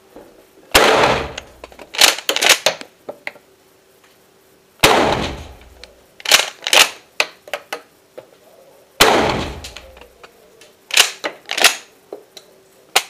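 Pump-action shotgun fired three times, about four seconds apart. Each shot echoes off the concrete range walls and is followed a second or so later by a quick burst of sharp metallic clicks as the pump is racked to chamber the next shell.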